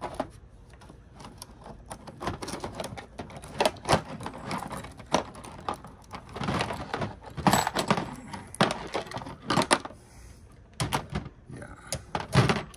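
Irregular clicks, taps and rattles of small metal and plastic parts being handled and pried apart with hand tools: a DVD player's disc-drive mechanism being dismantled.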